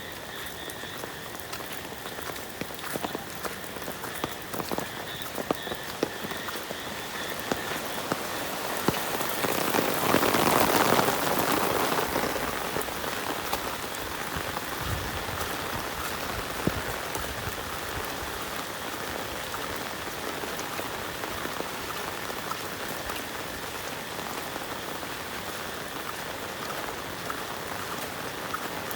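Rain falling steadily, with many small drops ticking close by; it swells louder for a couple of seconds about ten seconds in.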